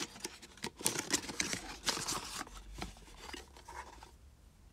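Handling of unboxing packaging: a black money box is slid out of its white cardboard box, with quick scrapes, rustles and clicks of card and plastic. They stop about four seconds in.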